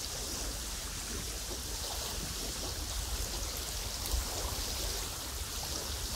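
Windy lakeshore ambience: a steady rustling hiss of wind and water with a low, gusting rumble of wind underneath.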